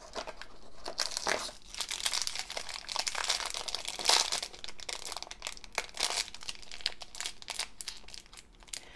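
A plastic toy blind bag crinkling and crackling in the hands as it is squeezed and torn open, in a rapid, irregular string of rustles and small crackles.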